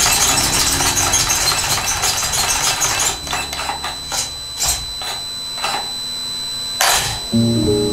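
Electric 1/10 RC car's motor and gears whirring under throttle, first continuously for about three seconds, then in short blips, over a steady high-pitched whine.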